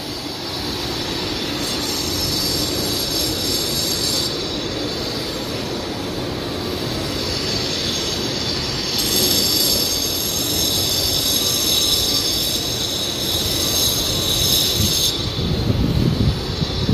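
A high-pitched mechanical whine that comes and goes, over a steady rushing rumble.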